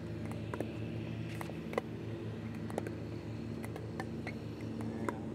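Pickleball paddles striking plastic balls in a soft dinking rally: short sharp pops at irregular intervals, several per second at times. A steady low hum runs underneath.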